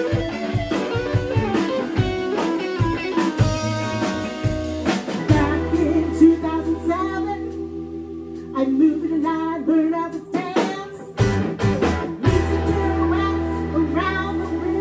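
Live blues band playing: electric guitars, bass and drum kit. A woman starts singing about five seconds in.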